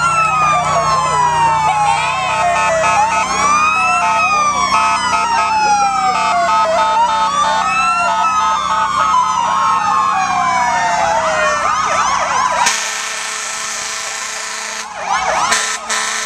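Several emergency-vehicle sirens sounding at once, their rising and falling wails overlapping, with steady tones underneath. About thirteen seconds in they cut off suddenly, leaving a steady hiss.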